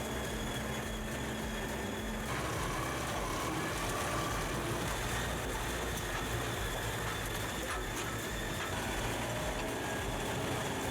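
Heavy machinery running steadily, a continuous engine-and-mechanism noise with no clear breaks.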